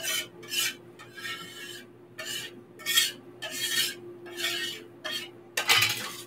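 Hands scraping and rubbing across a wooden butcher-block board in quick repeated strokes, about two a second, with the loudest strokes near the end.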